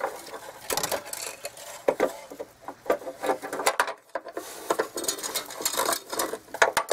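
Irregular small metal clicks, scrapes and rattles as a bolt on a coiled fish wire is worked by hand through the holes of a Ram 3500's steel frame rail.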